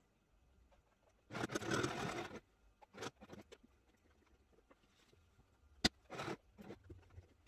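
Semco Indigo domestic sewing machine running a short stitch of about a second, then fabric rustling and scraping as the piece is handled, with a single sharp click a little before the end.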